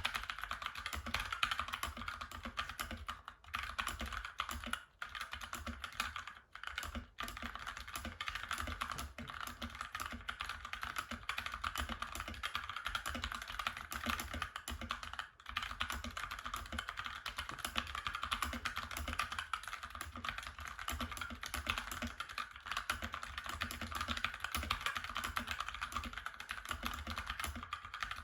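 Continuous fast typing on a Dierya DK63 60% mechanical keyboard with brown switches: a rapid, steady patter of keystrokes, with a few short pauses.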